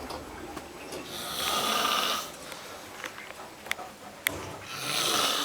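A person snoring: two long snores about three seconds apart, with two short sharp clicks in between.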